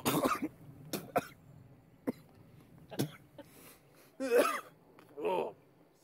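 A man coughing and clearing his throat in several short fits, set off by a bug he has just swallowed.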